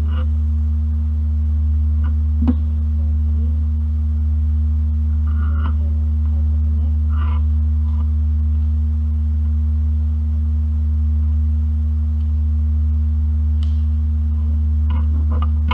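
A loud, steady low electrical hum, with faint rustles and a few light clicks from hands handling a network cable and paper.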